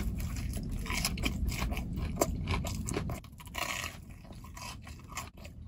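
Close-up crunching and chewing as a sugar-coated fried Korean corn dog is bitten, with many crisp crackles of the batter. About three seconds in, the crunching gives way to quieter chewing.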